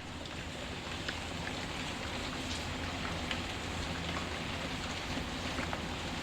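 Steady rain with scattered sharp crackles and pops from a burning wood fire.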